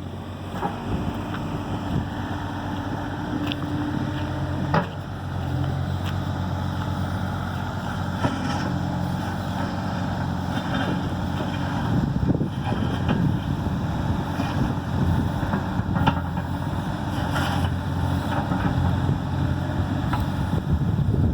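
Excavator's diesel engine running steadily, its note shifting a little about five seconds in, with a few sharp clanks and wind buffeting the microphone.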